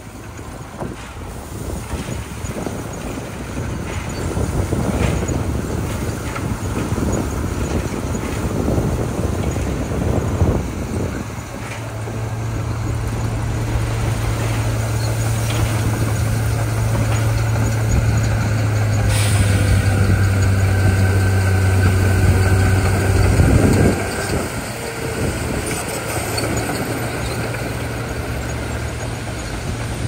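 Dump truck engine running, its revs held up for a stretch in the middle to drive the hydraulic hoist while the tipper bed rises, with gravel pouring out of the back. A brief hiss of air about two-thirds of the way through.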